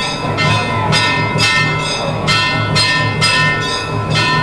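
Temple bells ringing in a fast, steady rhythm, about two strikes a second, each stroke ringing on into the next, with a low regular beat underneath.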